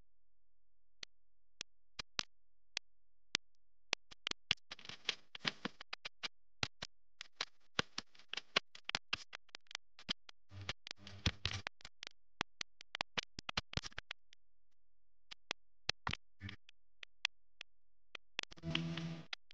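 Hands handling and folding craft paper: many scattered sharp clicks and taps, with short bursts of crinkling rustle about five seconds in, about eleven seconds in and near the end.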